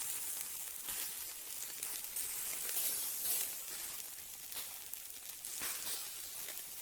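Food frying in a pan: a steady sizzle with irregular small crackles and pops.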